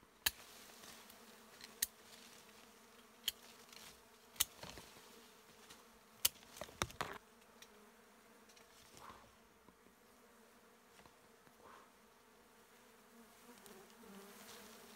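A wild colony of Asian honeybees buzzing on its comb: a faint, steady hum. A handful of sharp clicks stand out in the first half, the loudest things heard.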